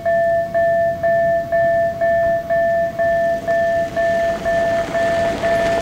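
Railroad level crossing warning signal sounding a steady electronic tone in short pulses, about two a second. Under it, the noise of an approaching freight train hauled by a Siemens ER20 diesel-electric locomotive grows over the last couple of seconds.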